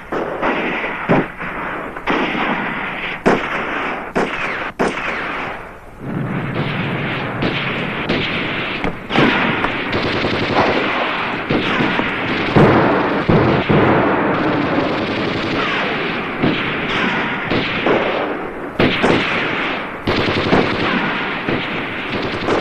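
Film soundtrack gunfire: a run of separate sharp shots for about six seconds, then a dense stretch of noise with more shots running through it.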